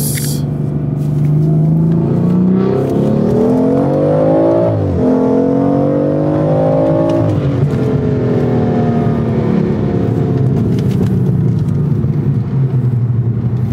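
Tuned BMW 340i's turbocharged inline-six accelerating hard, heard from inside the cabin. The engine note climbs, drops sharply at upshifts about five and seven and a half seconds in, then eases down gradually in a higher gear.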